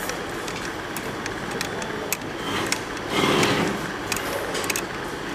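Steady hum of the switched-on 3D printer, most likely its cooling fans, with scattered light clicks and a brief scraping rub about three seconds in as the auto bed leveling sensor is handled and turned in its mount.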